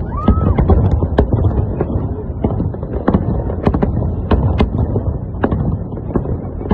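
Aerial fireworks bursting: a dense, irregular series of sharp bangs and crackles over a steady low rumble.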